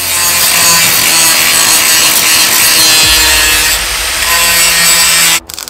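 Loud, steady rasping noise of a power tool at work over background music, cutting off sharply near the end.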